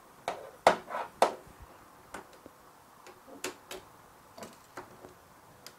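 Light clicks and taps of a steel tape measure and a metal rule being handled against the bare sheet-metal floor and ribs of a van's cargo area: a quick cluster of clicks about a second in, then scattered single ticks.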